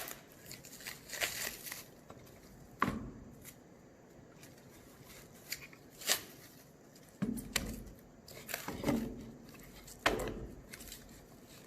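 Green plastic wrapping being torn and pulled off a wooden birdhouse kit: irregular bursts of crinkling and tearing, with a few sharp clicks.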